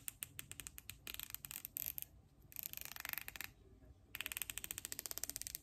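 Van Staal VR75 spinning reel's clicker ratcheting as the reel is turned by hand: fast runs of sharp clicks in three or four bursts with short pauses between, sounding really loud.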